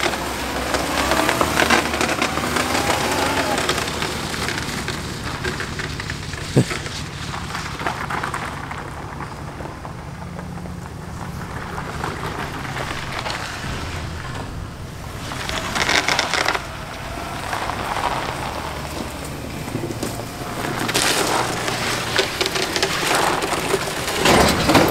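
A car engine running low under steady crunching and crackling, with one sharp knock about six and a half seconds in.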